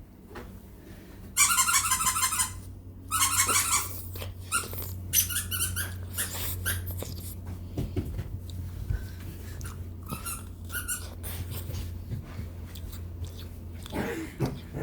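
A dog making high-pitched squealing, whining sounds indoors: two long squeals early on, then a run of shorter squeaks and whimpers, over a steady low hum.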